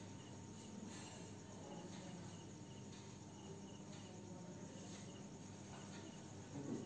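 Faint insect chirping: a short high chirp repeating steadily over a low, steady room hum.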